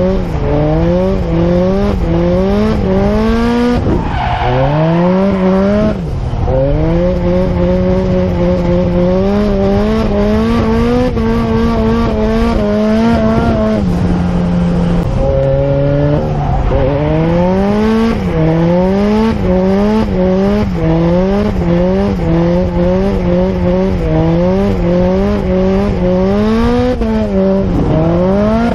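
Engine of a car being driven hard, held high in the revs, its pitch dipping sharply and climbing back several times as the throttle is worked, typical of a drift run.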